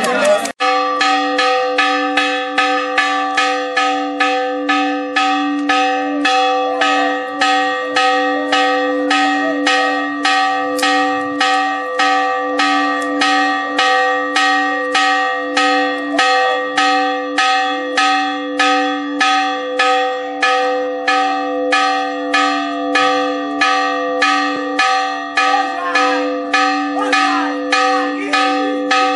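A single church bell struck rapidly and steadily, about two strokes a second, each stroke ringing on into the next.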